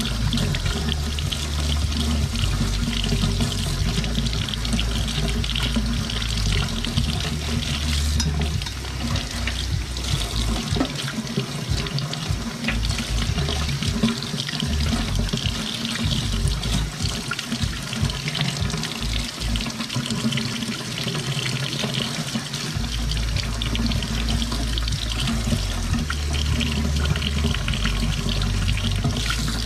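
Kitchen faucet running steadily into a stainless steel sink, its stream splashing over snow crab legs being rinsed by hand under it.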